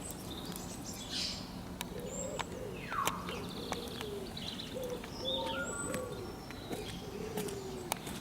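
Rocky Mountain goat whining in a series of short, thin calls that start about two seconds in, with high bird chirps and small clicks around them.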